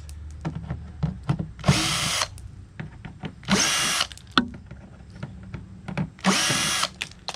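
Cordless power drill (screw gun) driving screws into a replacement cooler-lid hinge in three short bursts of about half a second each, with small clicks and knocks of handling between them.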